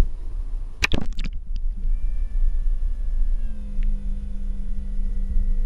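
Bennett trim tab hydraulic pump motor running, heard through the water on an underwater camera: over a low rumble come a few sharp knocks, then about two seconds in a steady humming whine starts as the tab is driven.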